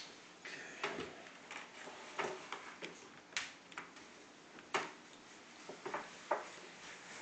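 Irregular light clicks and knocks of keyboards and a USB cable being handled and set down on a wooden tabletop.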